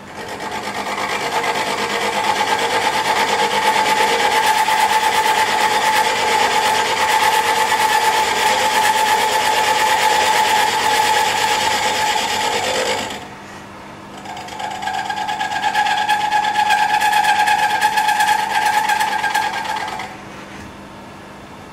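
Milling cutter facing the end of a cast rocker arm, in two cuts: about 13 seconds of harsh cutting noise with a steady ringing tone, a short drop to the machine running idle, then about six seconds more. The ringing is chatter, which comes from the part's overhang from the vise.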